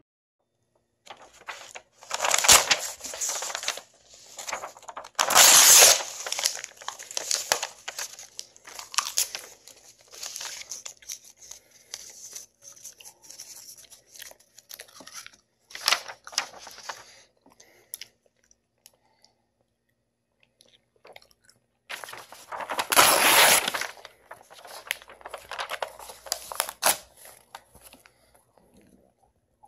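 A sheet of printed paper crinkling and tearing in several loud bursts, with quieter rustling and chewing between as the paper is eaten. There is a quiet pause in the middle.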